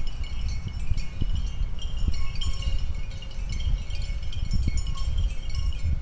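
Wind rumbling on the microphone, with many short, high, clear tinkling notes scattered over it, chime-like.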